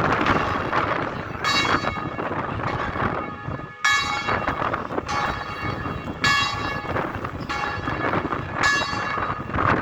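Bells ringing, a fresh strike every second or two, each leaving many ringing overtones, over a steady rush of wind noise.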